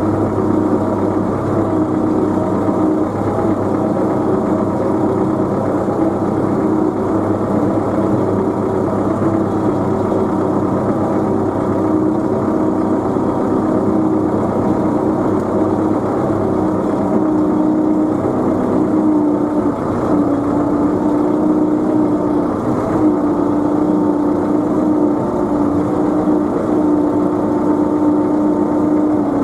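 Tractor engine running steadily, its note dropping slightly about two-thirds of the way through.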